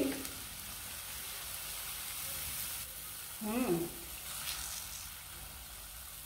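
Pancake batter sizzling in a lightly oiled nonstick frying pan, a steady hiss. A short vocal sound comes about halfway through.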